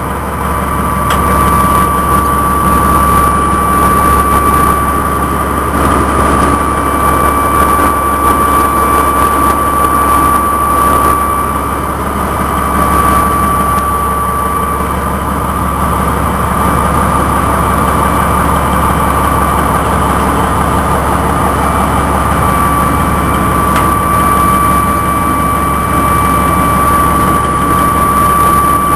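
Morbark 1200 tub grinder running: a steady heavy engine drone and rumble with a high, continuous whine held above it.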